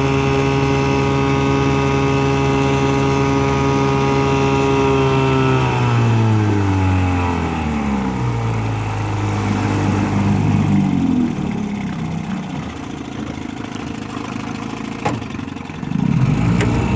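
1958 Evinrude Fisherman 5.5 hp two-cylinder two-stroke outboard running steadily at high speed under load, pushing a heavy boat. About five seconds in it is throttled back and its pitch falls over a few seconds to a slow, less even running, then it picks up again near the end.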